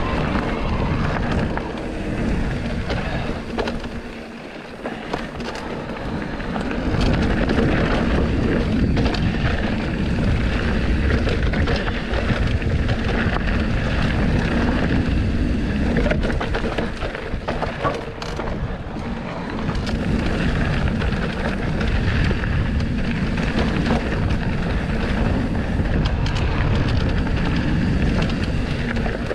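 Trail-riding noise from a Trek Rail 7 mountain bike on a dirt track: wind buffeting the microphone, tyres rolling over the trail and short rattles and knocks from the bike. It eases off briefly about four seconds in.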